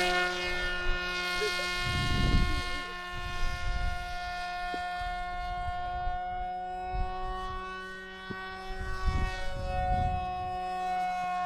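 Electric motor and propeller of a foam-board RC plane whining steadily at high throttle, with a slight shift in pitch near the end. Wind buffets the microphone in low rumbles about two seconds in and again near the end.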